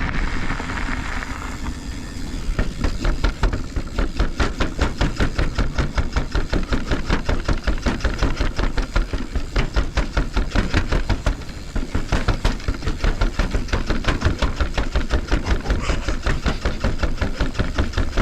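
Full-suspension mountain bike bumping down a long flight of stairs, its tyres knocking on each step in a fast even rhythm of about four a second, after a couple of seconds of rolling, with a short let-up about two-thirds through.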